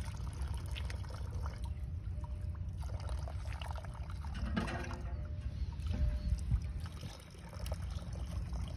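Water trickling and splashing from a hand pump's spout into cupped hands and onto the wet ground, over a steady low rumble.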